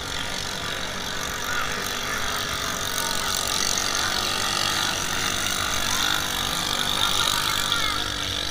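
Racing drag boats' engines running at speed, a steady high-pitched buzz that swells a little as a boat passes near the end, over a background of crowd chatter.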